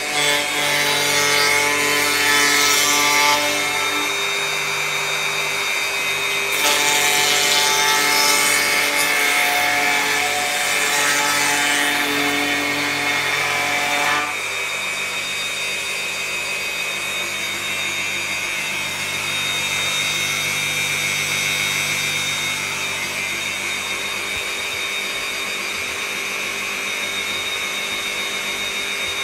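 Electric router on a flattening sled, its motor running steadily while it cuts across a wooden slab. The cutting sound is heavier in two stretches in the first half, then eases to a lighter, steady whine about halfway through.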